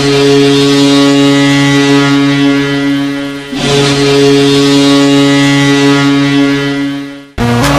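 An NHL arena goal horn sounding two long, low, steady blasts, each about three and a half seconds, with a brief break between them; the second cuts off suddenly near the end.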